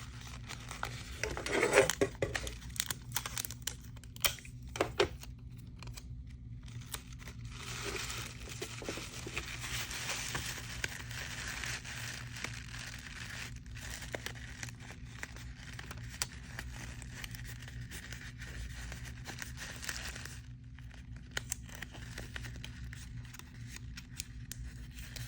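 Paper crinkling and rustling while sticky tape is pulled off and torn to seal the edges of a paper squishy, with sharp scattered crackles early on and a longer stretch of steady rustling in the middle. A steady low hum runs underneath.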